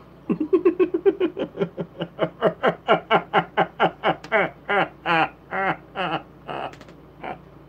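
A man laughing heartily: a long run of quick 'ha-ha' pulses, about four a second, that dies away near the end.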